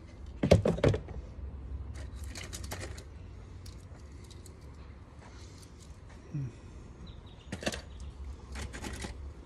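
Die-cast toy cars clicking and clattering as they are handled: a few sharp metallic clicks about half a second in, a cluster near two seconds, and more toward the end.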